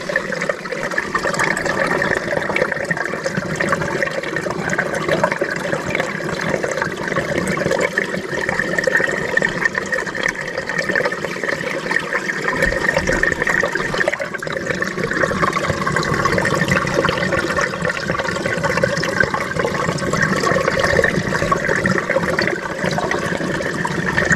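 Spring water welling out from under mossy rocks and running over gravel: a steady trickling, gurgling flow of a small mountain spring.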